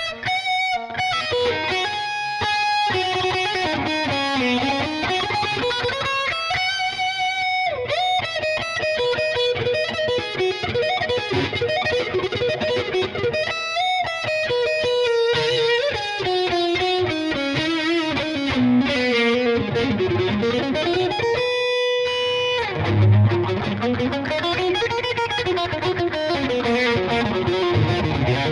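B.C. Rich Virgo electric guitar played with distortion: fast lead runs mixed with held notes that waver with vibrato.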